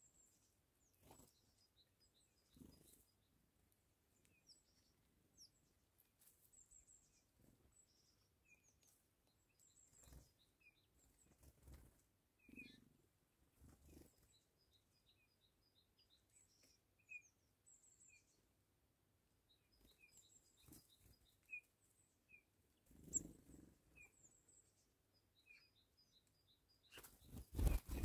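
Faint bird calls: many short high chirps and call notes, some in quick runs, with occasional soft taps as a Eurasian blackbird pecks at seed on the table. Near the end comes a short, louder flurry of wing flaps and knocks as a Eurasian jay lands on the table.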